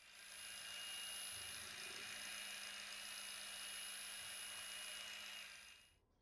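A power tool running steadily with a hiss and a low hum, coming up at the start and dying away near the end.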